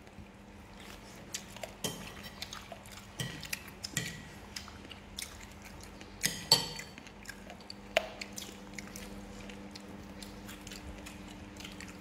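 Metal spoons clinking and scraping against ceramic plates and bowls while people eat, as scattered light clicks with a sharper clink about six and a half seconds in, over a faint steady hum.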